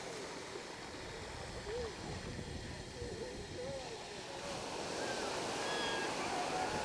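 Small surf washing up over a sandy beach: a steady wash of foamy water at the shoreline, growing a little louder near the end.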